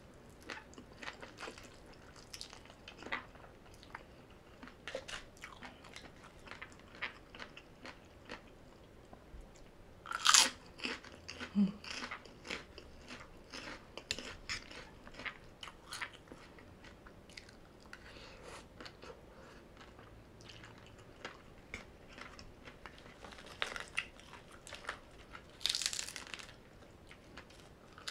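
Close-miked eating: chewing and crunching of green papaya salad and rice noodles, with many small wet mouth clicks. There are two louder bites, one about ten seconds in and one near the end.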